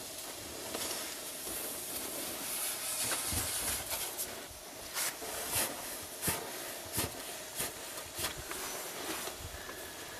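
Snow pusher sliding and crunching through deep, packed snow: irregular short scrapes over a steady hiss.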